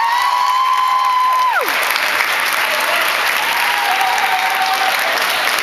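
Large audience applauding steadily. Over it, one voice gives a long high 'woo' that rises, holds and falls away about a second and a half in, and a shorter, fainter call follows around the middle.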